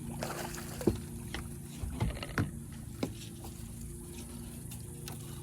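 Steady low hum of a boat's motor, with a few sharp knocks and splashes about one to three seconds in.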